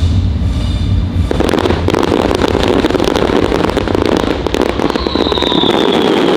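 Fireworks going off. A low rumble gives way, about a second in, to a dense continuous crackling of many small reports, and a whistle falls in pitch near the end.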